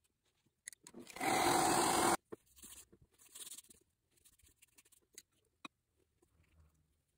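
Watercolour brush working on wet paper: soft, scratchy strokes, with a louder one-second rush of noise about a second in that cuts off sharply.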